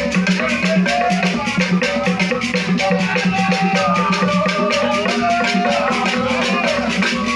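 Percussion music for a masquerade dance: rattles or shakers in a fast, even rhythm over a steady drum pulse, with a melody line wandering above.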